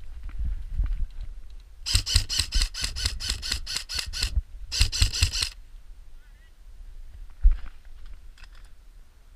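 Airsoft rifle firing plastic BBs on full auto in two bursts, a rapid even string of sharp shots lasting about two and a half seconds and then a shorter burst just after. A single thump follows near the end.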